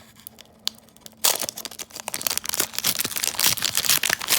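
A Pokémon card pack's wrapper being torn open and crinkled. It starts suddenly about a second in and goes on as dense crackling and ripping, after a single small click.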